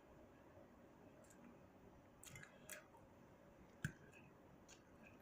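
Near silence with faint eating sounds while chewing: a few soft clicks a couple of seconds in and one sharper click about four seconds in.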